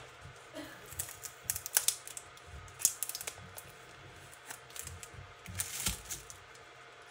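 Irregular light clicks and scrapes from metal tweezers and fingers working through packing material on a tabletop, coming in small clusters.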